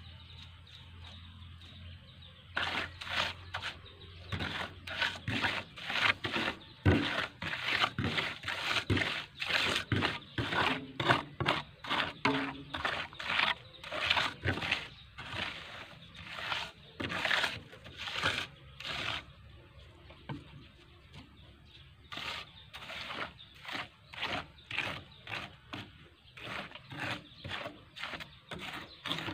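Steel trowel scraping across wet sand-and-cement concrete, spreading and levelling it in quick repeated strokes, about two a second. The strokes start a couple of seconds in and stop for a moment about two-thirds of the way through before resuming.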